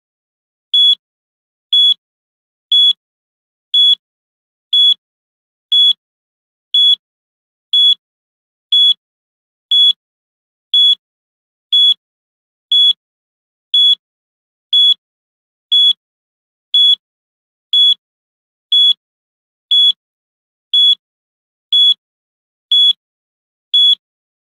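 Countdown timer beeping once a second: a short, high electronic beep repeated evenly, each one the same pitch, with silence between.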